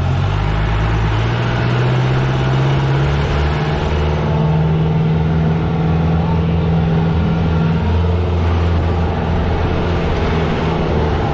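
Old jeep's engine running under load, heard from inside the open cab as it drives a rough hill track. A steady low drone whose pitch shifts a few times as the revs change.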